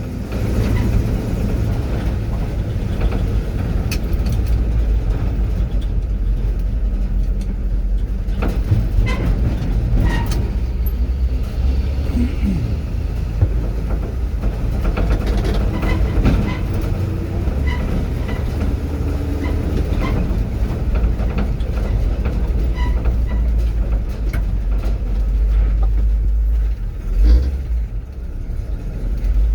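Truck driving over a rough road: a steady low engine and road rumble, with the body and load bed rattling and knocking over the bumps.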